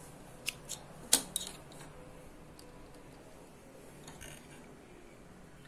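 Light metal clicks and snips from small hand tools worked at an overlock machine while it is being threaded: four quick ones in the first second and a half, the sharpest about a second in, and a fainter cluster around four seconds in.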